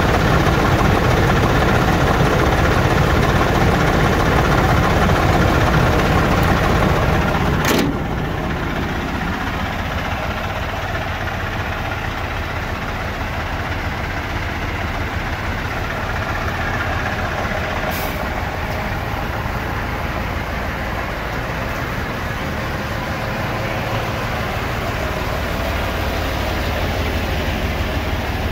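Mercedes-Benz 1622 tipper truck's diesel engine idling steadily. It is loud and close at first, then a little quieter after a sharp click about eight seconds in, with another brief click about eighteen seconds in.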